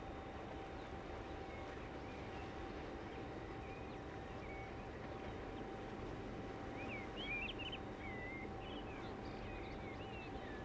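Small birds chirping in short, quick calls, busiest about seven seconds in and again near the end, over a steady low background rumble with a faint constant hum.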